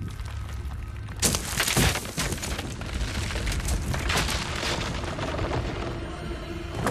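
Film sound effects of a stone building collapsing: a low rumble, then about a second in a sudden loud crash of breaking masonry that goes on as a run of crashes and falling debris, mixed with a music score.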